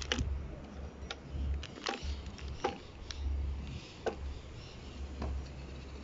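Canvas-and-leather folding pouch being handled on a wooden table: scattered short clicks and rustles as the leather rim is opened and stretched, over a low rumble that swells and fades.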